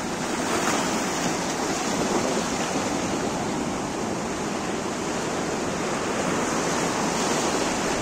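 Surf washing over rocks and sand at the shoreline: a steady rush of small breaking waves.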